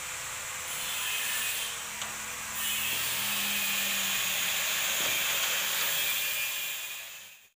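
Steady hissing noise that shifts in level a few times and fades out near the end.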